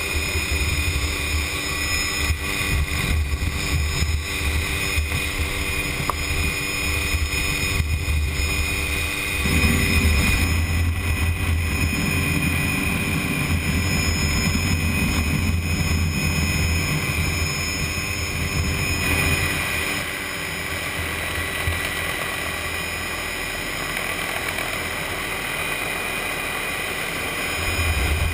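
Helicopter in flight: steady engine and rotor noise. The low rotor beat weakens for several seconds in the later part and comes back strongly near the end.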